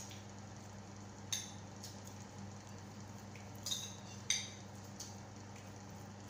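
Spoon and fork clinking against a ceramic plate while eating, a few short clinks over a steady low hum.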